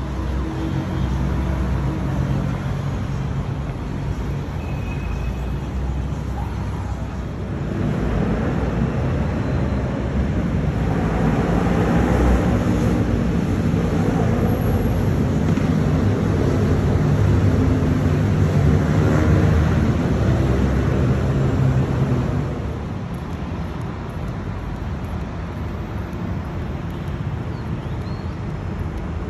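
City road traffic: a steady rumble of vehicle engines and tyres. A nearby engine grows louder for about a quarter of a minute in the middle, then fades back to the general traffic noise.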